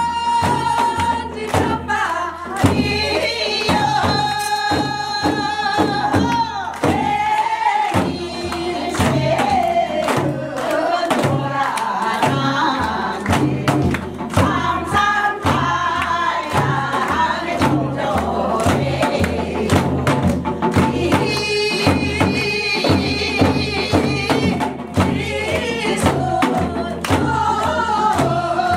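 Group of women singing a Korean folk song together over a steady beat of drums, sogo hand drums and a barrel drum.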